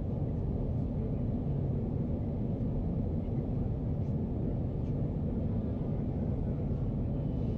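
Steady low rumble of a Boeing 737's engines and airflow heard from inside the passenger cabin during the approach.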